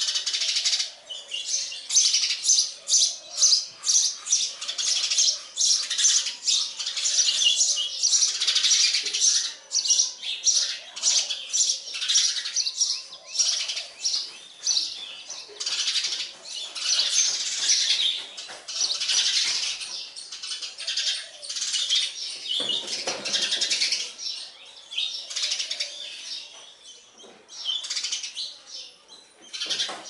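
House sparrows chirping: a dense run of quick, high chirps, loud and near-continuous. A short low rustle comes about three-quarters of the way through.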